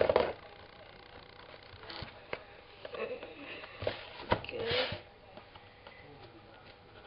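Cardboard and plastic packaging being handled and opened by hand: scattered rustles and crinkles with a few separate sharp clicks and taps.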